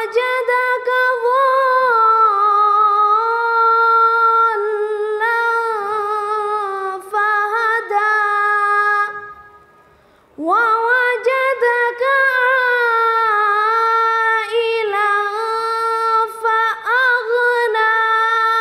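A boy's unaccompanied voice chanting Quran recitation in the melodic tajweed style, long held notes with ornamented turns, in two long phrases with a short pause for breath about nine seconds in.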